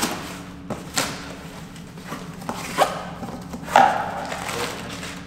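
Cardboard box being cut and pulled open by hand: a few sharp cardboard cracks and rustles, the loudest about four seconds in.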